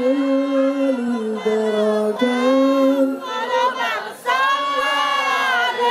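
Sholawat, an Islamic devotional song: a voice sings long held notes that waver and turn in pitch. There is a short break a little past the middle.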